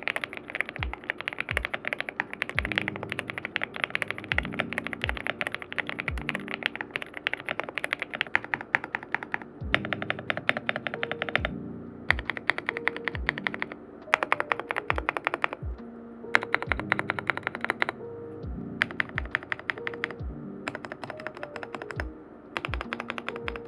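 Typing on a GMK104 gasket-mounted mechanical keyboard fitted with lubed KTT Kang White switches and OEM-profile keycaps: fast runs of keystrokes broken by short pauses. Background music with a steady beat plays underneath.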